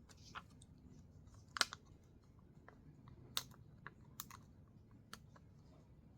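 Light clicks and taps from paper and craft materials being handled on a work surface, about six of them at uneven intervals, the sharpest about a second and a half in, over a low steady hum.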